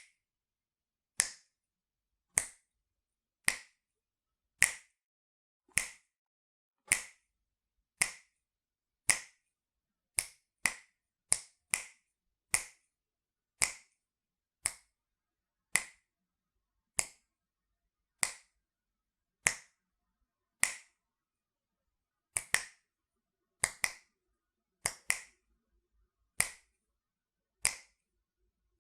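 Finger snaps, sharp and dry, one about every second with silence between. A few come in quick pairs or triplets.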